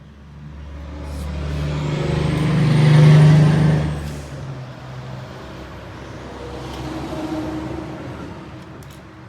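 A vehicle driving past, growing louder to a peak about three seconds in and then fading, followed by a second, quieter swell as another vehicle passes.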